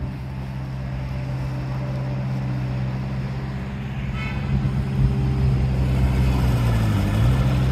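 Engine of an amphibious canal-cleaning workboat running steadily as it drives through the water, growing louder as it approaches, with its pitch dipping briefly near the end.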